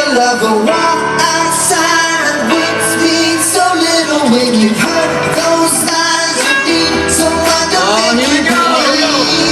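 Live pop music with singing: voices sliding through long, bending vocal runs over a steady accompaniment, with a low bass line coming in about two-thirds of the way through.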